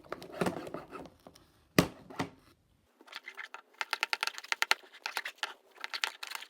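Fluffy slime of glue and shaving foam being mixed as the activator clumps it up: a few sharp knocks, then a quick run of small sticky clicks and squelches, several a second, from about halfway.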